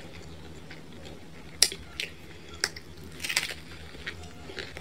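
Crisp thin-crust pizza crunching as it is bitten and chewed, a few sharp separate crunches.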